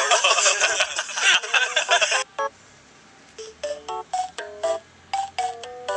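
Loud overlapping voices and noise for about two seconds. They cut off suddenly, and a sparse ringtone-like melody of short beeping notes follows, a few notes a second.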